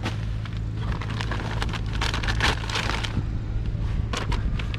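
Irregular rustling, crackling and clicks of items being handled, densest in the middle with a few sharp clicks near the end, over a steady low hum.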